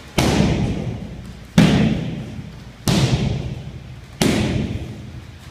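Roundhouse kicks landing on Thai pads: four hard thuds about one and a half seconds apart, each trailing off in the room's echo.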